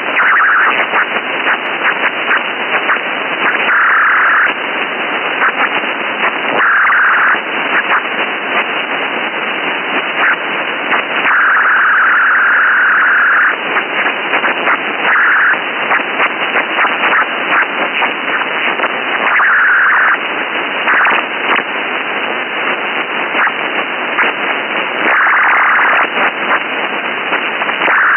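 Sci-fi radio static: a steady crackling hiss, broken every few seconds by louder bursts of brighter hiss, most brief and one lasting about two seconds.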